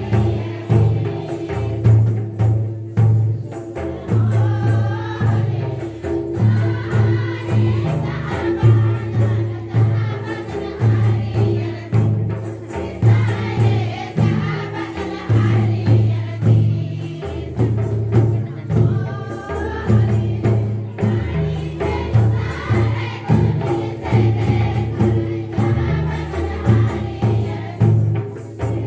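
A group of voices singing a folk dance song together over a repeating low beat of a two-headed barrel drum played by hand, the drum the loudest sound.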